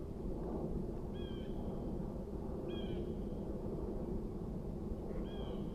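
A bird calling three times, each a short mewing note of about half a second: about a second in, near three seconds, and near the end, over a steady low background rumble.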